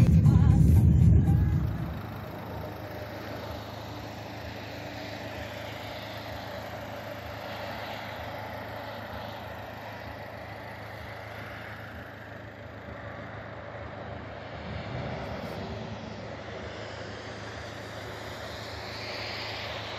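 Car driving, heard from inside: a loud low rumble for the first two seconds, then steady, quieter road and engine noise.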